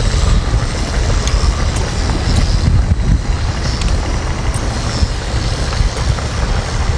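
Wind buffeting the microphone, a heavy, uneven low rumble.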